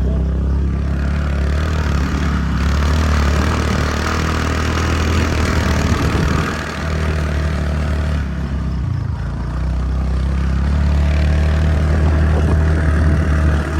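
Motor scooter engine running steadily under way, with a brief easing of the engine about six and a half seconds in.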